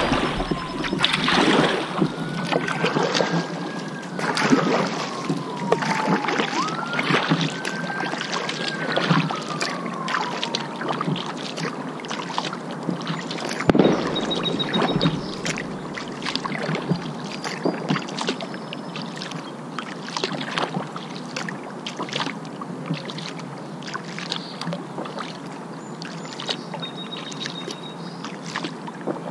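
Kayak paddle strokes dipping and splashing in river water, with water rushing along the hull. In the first ten seconds a wailing tone rises, holds and falls away, twice.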